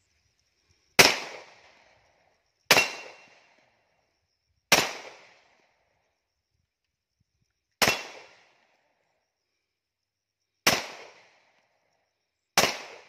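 Semi-automatic pistol fired six single shots at an uneven pace, a second to three seconds apart, each shot a sharp crack that rings out and fades over about a second.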